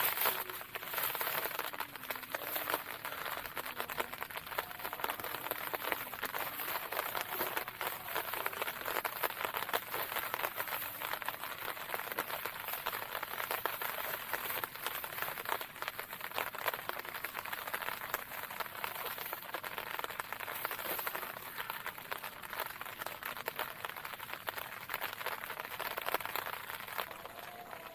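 Steady rain falling, a dense spread of fine drop ticks.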